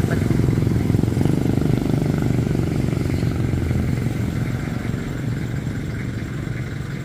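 Motorcycle engine running at low speed, growing gradually quieter as the bike slows.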